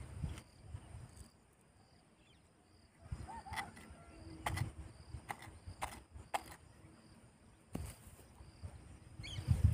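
Snakehead fish being unhooked with pliers: about five sharp clicks of metal pliers and hook in the fish's jaw, mostly in the second half. Insects chirr steadily and faintly behind it.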